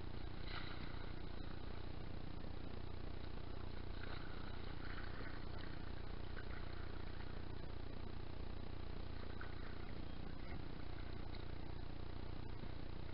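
A steady low rumble and hum, with a few faint, brief splashes of a kayak paddle dipping into the water now and then.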